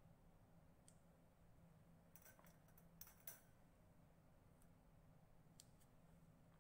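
Near silence over a steady low hum, broken by a few faint, scattered clicks from hands handling tape and sticking labels onto glass test tubes in a wire rack. The loudest two clicks come a little after three seconds in.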